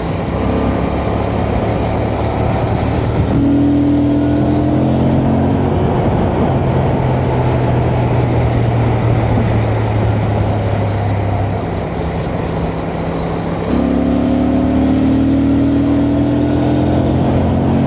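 Honda Transalp motorcycle riding along an open road: the engine runs steadily under a constant wind rush, its note shifting a few times as the speed changes.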